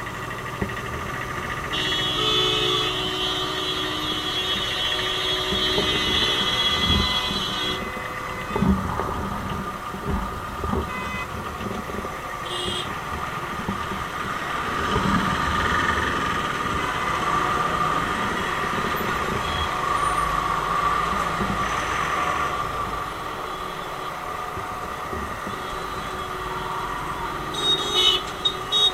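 Dense slow road traffic heard up close: vehicle engines running alongside a truck and scooters. A high, steady tone is held for about six seconds near the start, a brief one sounds about 13 seconds in, and a few short high toots come near the end.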